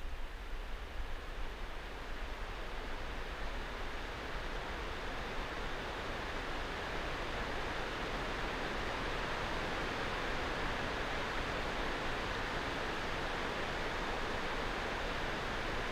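Steady outdoor rushing noise with a low rumble, with no separate events in it. It is typical of wind and distant water on an open shore.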